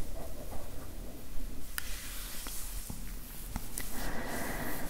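Close-miked ASMR sounds: soft scratchy rubbing with a few sharp clicks, and a faint steady high tone from about four seconds in.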